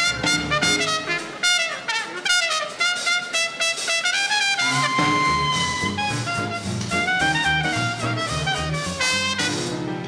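A small-group swing band plays live in late-1930s style: trumpet and clarinet over piano and upright bass. About five seconds in, a horn holds one long note.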